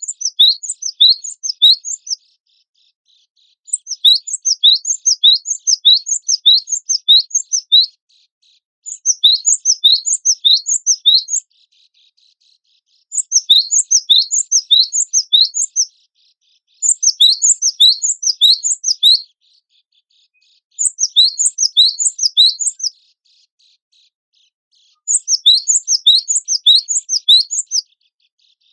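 Cinereous tit (gelatik batu) singing in phrases of rapid, repeated high chirps. About seven phrases of two to four seconds each, separated by short pauses.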